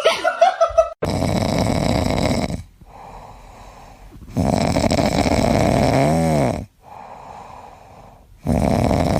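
A pet snoring loudly: three long snores about three and a half seconds apart, each lasting around two seconds, with quieter breaths between.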